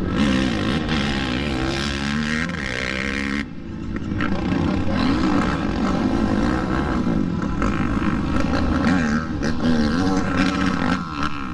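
Racing quad (ATV) engines revving up and down as they run the track, their pitch rising and falling over and over, with more than one engine heard at once. The sound dips briefly about three and a half seconds in, then the revving carries on.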